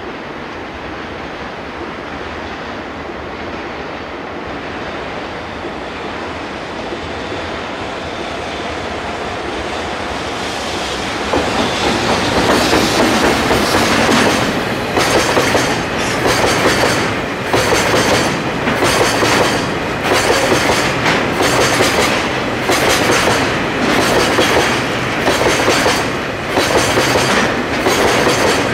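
Freight train of tank wagons passing close by. A rumble grows as the train approaches, then turns loud, with a steady clickety-clack of wheels over rail joints about once a second as the wagons roll past.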